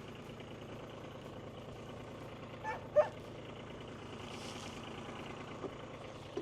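Car engine idling steadily, just started after being dug out of snow. About three seconds in come two short, sharp, pitched calls, the second much louder.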